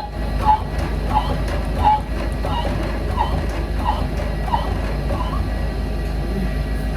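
Wheel bearing being worked further into its seat: a short squeak on each stroke of the tool, about three every two seconds and fading toward the end, over a steady low hum.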